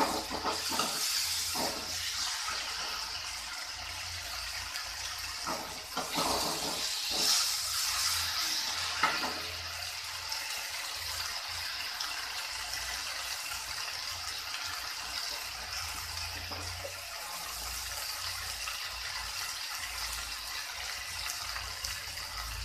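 Masala paste with tomato and onion frying in oil in a steel kadai: a steady sizzling hiss. A steel ladle scrapes and knocks against the pan several times during roughly the first nine seconds, then only the sizzle goes on.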